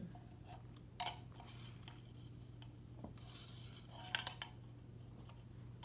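Light clicks and knocks of drink cans and other small things being handled and set down on a table, a few separate taps with a short hiss just after the middle, over a steady low hum.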